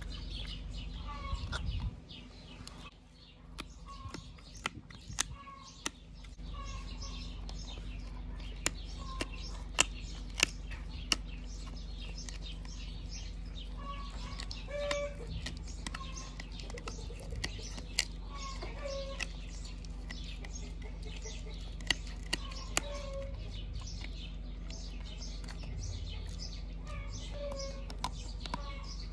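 Husky chewing a dried beef jerky strip held in a hand: sharp, irregular crunching clicks of teeth on the tough strip. Birds call briefly and repeatedly in the background.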